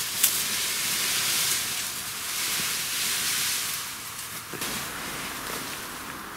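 Steady hissing rustle and scrape of a large woven ground-cover tarp being dragged back across the soil.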